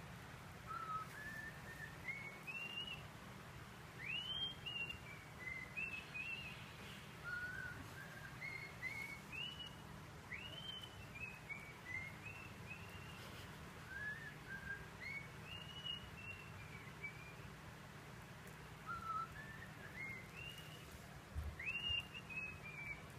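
Cockatiel whistling a tune from a laptop's speaker: repeated phrases of short whistled notes, many of them sweeping upward, over a faint steady hum.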